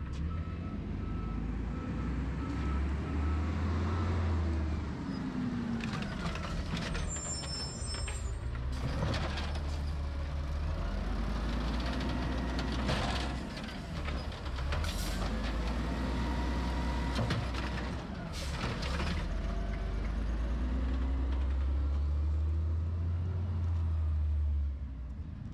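Garbage truck engine running with a heavy low rumble, revving up and down again and again as the truck works. Sharp hisses and knocks come several times along the way, and a thin high beep sounds in the first few seconds.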